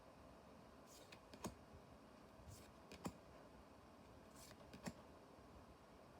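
Faint handling of trading cards: three times, a short slide followed by a soft tap, about every second and a half.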